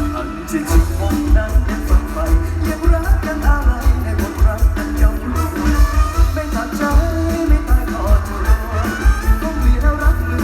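Mor lam band music played loud through a big concert PA system, with a steady, heavy bass drum beat under a singing voice and instruments.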